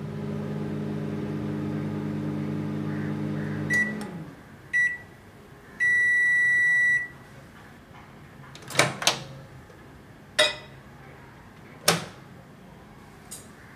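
Microwave oven running with a steady hum that stops about four seconds in. Two short beeps follow, then one long beep of about a second, then a few sharp clicks and knocks.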